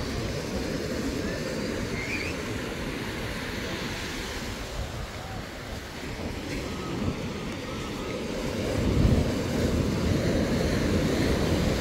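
Surf washing onto the beach, with wind rumbling on the microphone; the rush grows louder about nine seconds in.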